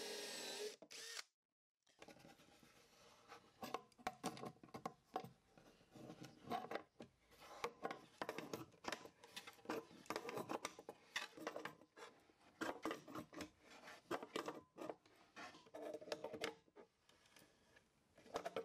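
A cordless drill runs briefly and stops. After a short gap come faint, irregular metal clicks and scrapes: an adjustable wrench turning male air-hose couplers, which cut their own threads into soft plywood.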